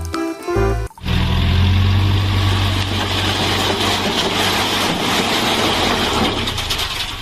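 Background music for about a second, then a sudden cut to a vehicle engine running steadily: a low hum with a hiss over it, easing slightly near the end.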